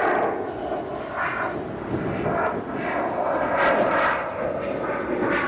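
Airplane engine noise from an aircraft in flight, loud and continuous, wavering in pitch and level.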